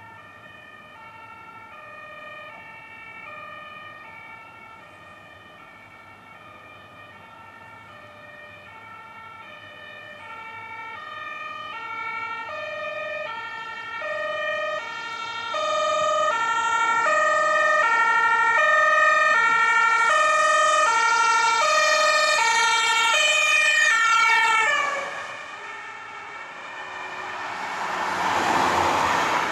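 German two-tone emergency siren (Martinshorn) from an approaching ambulance and emergency doctor's car, alternating steadily between two pitches and growing louder. Its pitch drops as it passes about 23 seconds in, and it stops soon after. Near the end a vehicle rushes past with engine and tyre noise.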